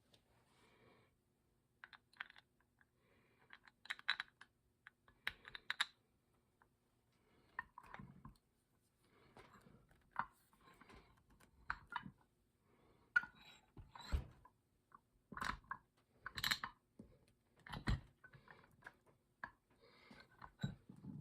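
Irregular light metallic clicks and knocks, as of vise parts and hand tools being handled and set down on a workbench.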